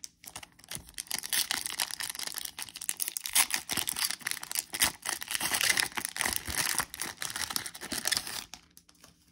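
Foil wrapper of a Leaf Draft football card pack being torn open and crinkled by hand: a dense run of crackling that stops about a second before the end.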